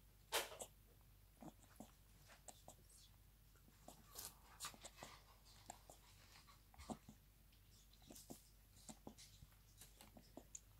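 Wombat joey suckling milk from a bottle teat: faint, irregular wet clicks and smacks of its mouth.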